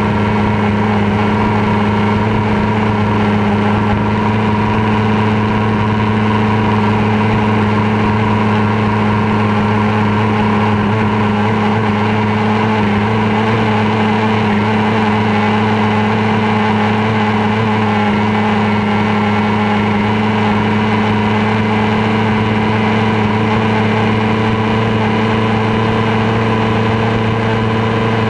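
Racing outboard motor of a small stock hydroplane running flat out at a steady, unchanging pitch, heard close up from on board.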